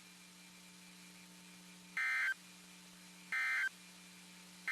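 NOAA Weather Radio EAS end-of-message (EOM) signal: short, loud bursts of screeching digital SAME data tones about 1.3 seconds apart. Two full bursts are heard, and a third starts at the very end. A faint steady hum from the broadcast lies underneath.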